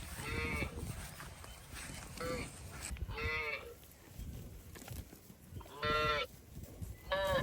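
Cattle mooing in five short, fairly high-pitched calls, each under half a second, loudest about six seconds in.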